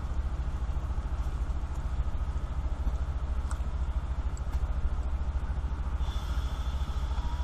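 Steady low rumble with a fast flutter, and a few faint clicks as plastic wiring connectors are handled.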